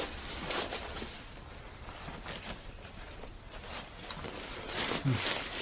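Faint rustling of clothing and light movement in a quiet room.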